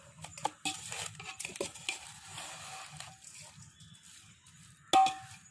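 Fried boondi being stirred through sugar syrup: soft, irregular scrapes and clicks, then one ringing clink of the utensil against the vessel near the end.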